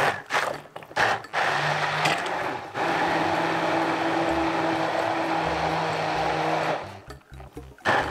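Hand-held stick blender blending a liquid marinade in a plastic jug. It comes in a few short pulses, then runs steadily for about five seconds while it purees garlic and oil into the juice, and stops near the end.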